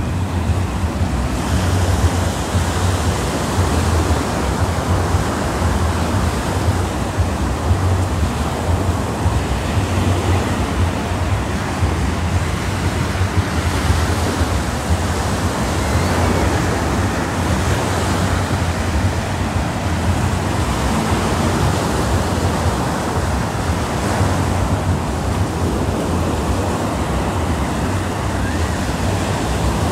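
Small ocean waves breaking and washing up a sandy shore in a steady surf wash, with wind buffeting the microphone as a constant low rumble.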